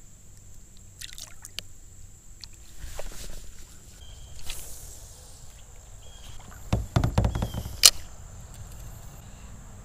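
A few knocks and clicks from a spinning rod and reel being handled in a plastic kayak, over light water sloshing against the hull; the sharpest knocks come about seven to eight seconds in.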